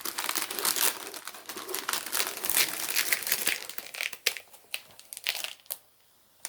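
Crinkling and rustling of a diamond painting canvas and its plastic wrapping being handled and turned over, a run of irregular crackles that thins out and stops about a second before the end.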